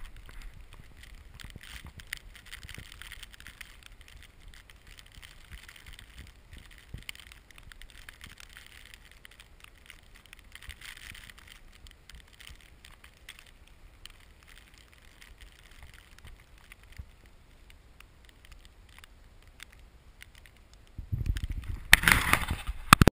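Soft, steady hiss of skis gliding through deep powder snow, with faint crunches and a low wind rumble on the microphone. Near the end, loud bumps and rubbing right on the microphone.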